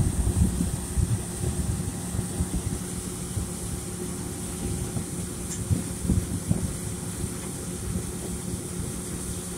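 John Deere S770 combine running with its unloading auger pouring soybeans into a truck's grain box: a steady mechanical hum, with gusts of wind buffeting the microphone.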